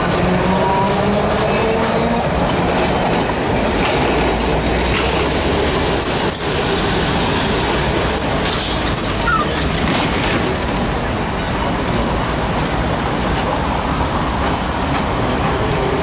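Vintage Peter Witt-type streetcars rolling along curved street track, steel wheels on rail with a rising motor whine in the first couple of seconds, over steady city traffic noise.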